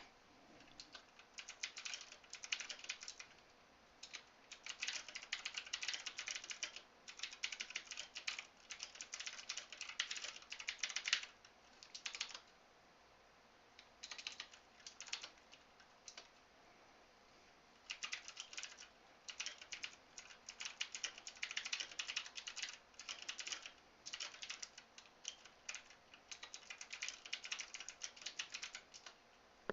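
Typing on a Redragon K551 mechanical keyboard: runs of rapid key clicks and clacks, broken by short pauses and a longer gap of a couple of seconds midway.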